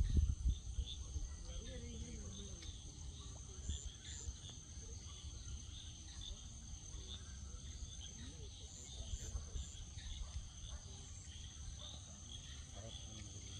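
Steady high-pitched insect chorus, crickets trilling in a continuous pulsing drone, under a low rumble with a loud low thump right at the start.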